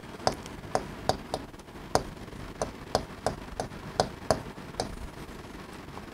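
Chalk tapping and knocking on a chalkboard while writing: about a dozen short, sharp taps at an uneven pace.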